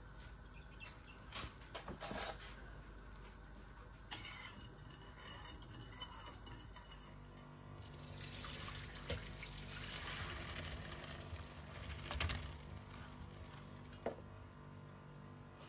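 Rice and its hot cooking water poured from a saucepan into a stainless steel colander in a sink, a splashing pour of several seconds from about halfway through. A few knocks of the pan come before it.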